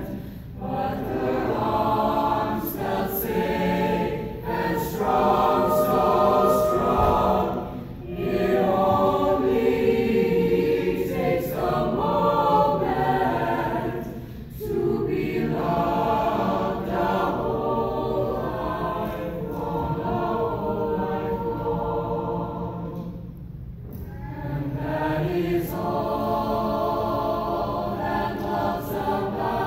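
A choir singing, with short breaks between phrases about 8, 14 and 23 seconds in.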